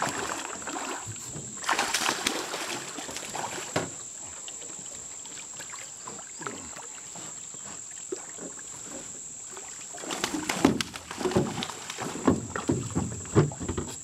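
Water splashing as a channel catfish thrashes at the surface beside the boat while it is hauled up on a line. The splashing comes in two spells, about two seconds in and again from about ten seconds in. A steady high insect drone runs underneath.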